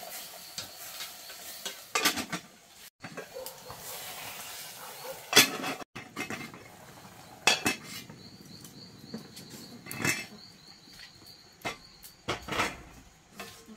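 Metal cookware clanking as a pot is stirred, lidded and lifted off a wood fire with tongs: about five separate sharp clanks of metal on metal.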